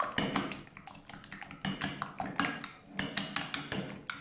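Metal spoon stirring yogurt and ginger-garlic paste in a glass bowl, clinking against the glass in quick, irregular strokes.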